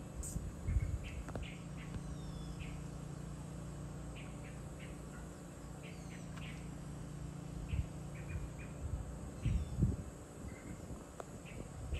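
Small birds chirping and calling in short scattered notes, with a few brief falling whistles, over a steady low hum. A few low bumps about a second in and near the end.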